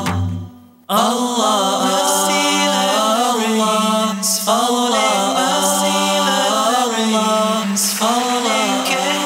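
The preceding music fades out, and about a second in a voice begins chanting a slow, melodic line unaccompanied, holding and bending long notes.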